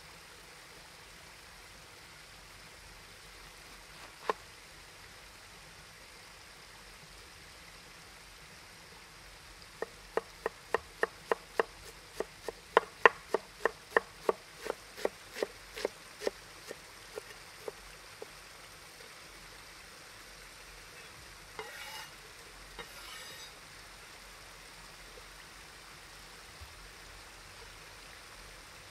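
A run of regular sharp knocks, about three a second for some eight seconds, growing louder and then fading, over a faint steady hiss. A single knock comes a few seconds before the run, and a brief scraping noise comes a few seconds after it.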